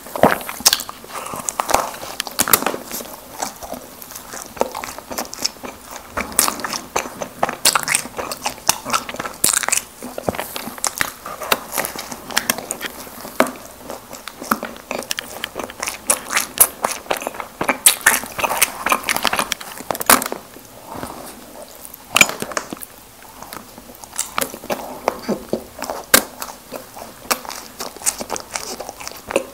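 Close-miked biting and chewing of Krispy Kreme doughnuts, with a dense run of small irregular mouth clicks throughout.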